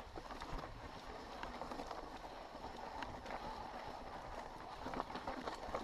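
Mountain bike rolling down a rough dirt and rock trail: tyres crunching over loose stones, with the bike rattling and knocking over the bumps.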